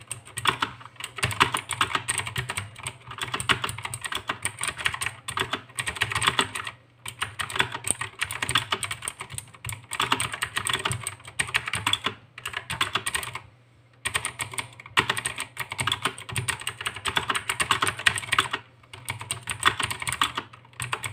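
Fast typing on a mechanical keyboard with blue Outemu switches, the TAG Gamerz Warrior: rapid clicky keystrokes in runs of a few seconds, broken by short pauses.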